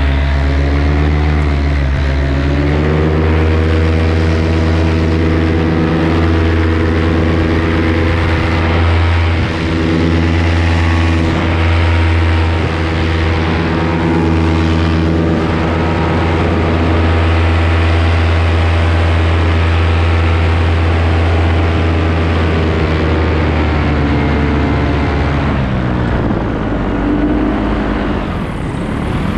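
Paramotor engine and propeller running at high power through the takeoff and climb: the pitch rises about two to three seconds in and holds steady, then drops near the end as the throttle comes back.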